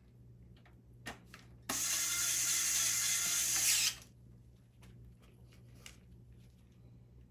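A power screwdriver or drill runs steadily for a little over two seconds, probably driving a screw while the DVR case is closed up. A couple of small clicks come just before it.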